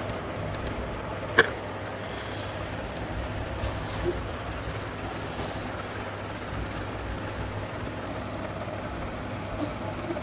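Steady low background hum, with a few sharp clicks in the first second and a half and soft hissing swishes around the middle.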